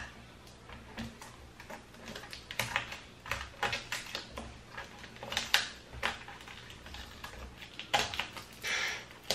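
Irregular light clicks, taps and crinkling as hands work at the taped-on sheet-metal shield on the back of an LCD monitor panel, with a longer rustle near the end.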